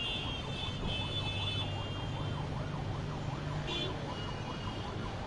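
An emergency-vehicle siren in a fast yelp, its pitch rising and falling about four or five times a second, over a low steady hum.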